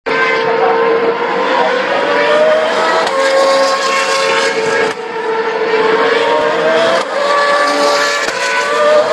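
Racing car engines at high revs: a loud, steady, high-pitched engine note that rises in pitch briefly about two seconds in, around seven seconds in and near the end, with more than one engine heard at once at times.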